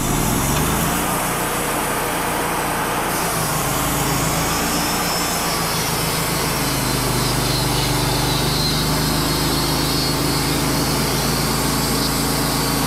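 Wood-Mizer LT35 hydraulic portable sawmill running at full speed while its band blade cuts through a black cherry cant. A steady engine tone runs under the hiss of the cut, which comes up as the blade enters the wood and grows louder about three seconds in.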